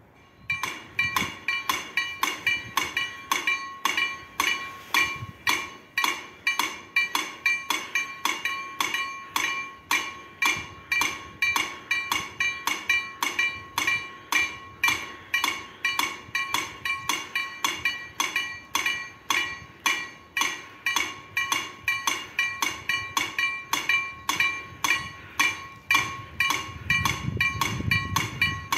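Level-crossing warning bell from the crossing's KLD-40 electronic sound generators starting up as the crossing activates: rapid, evenly repeated bell-like dings that keep going throughout. A low rumble builds under the ringing near the end.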